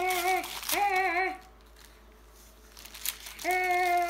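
A child humming held notes, breaking off for about two seconds in the middle, while the plastic wrapping of an L.O.L. Surprise ball crinkles as she peels it open.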